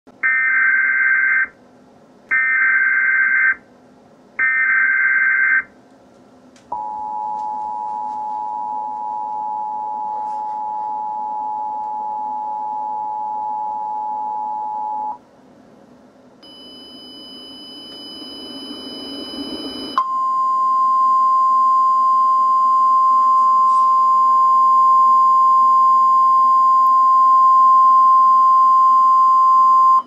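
Emergency Alert System tornado warning tones. Three screeching bursts of SAME digital header data come first, then the two-tone attention signal for about eight seconds. After a few seconds of rising hiss, a single steady NOAA Weather Radio 1050 Hz warning tone sounds for the last ten seconds.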